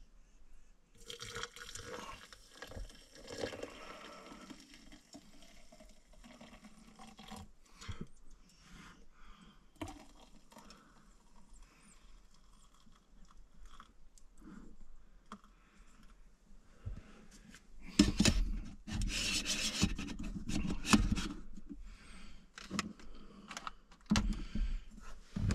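Camp-stove cookware being handled: hot water poured from the stove pot into a mug, with clinks, scrapes and rubbing of the pot, mug and lids. Louder knocks and rustling come about three quarters of the way through.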